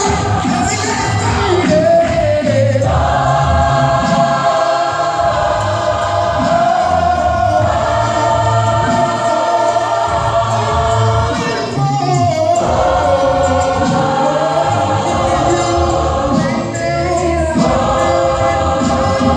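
Gospel choir singing long held chords in phrases of about four to five seconds, with brief breaks between phrases.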